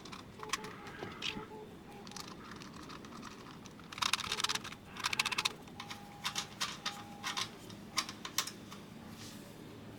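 Typing on a split keyboard: scattered key clicks, with two quick flurries of keystrokes about four and five seconds in.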